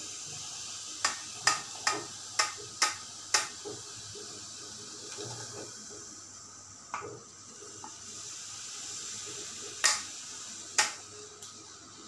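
Hot chai poured from a steel saucepan through a tea strainer, a steady pouring splash that thins out about halfway through as the pan empties. Sharp metal clinks of the pan rim and strainer knocking together: about six quick ones a second or so in, and a few more near the end.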